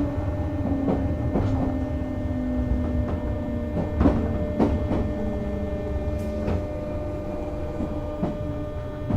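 JR West 201 series thyristor-chopper electric train slowing down. Its motor and chopper whine falls in pitch while the wheels knock over rail joints at a slowing, irregular rate, the sounds of braking into a stop. Near the end the sound changes suddenly to a lower, louder rumble.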